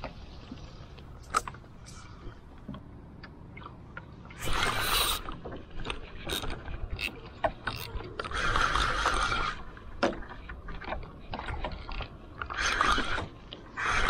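Spinning reel being cranked in, its gears whirring in bursts of about a second with pauses between, with a few clicks, over a low wind rumble on the microphone.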